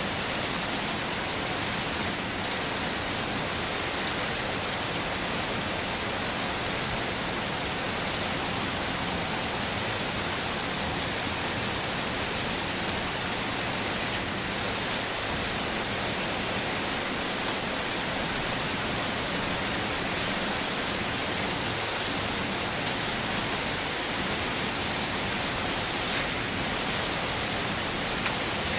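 Heavy rain falling in a steady, dense hiss. Three times, about twelve seconds apart, the higher part of the hiss drops out for a moment.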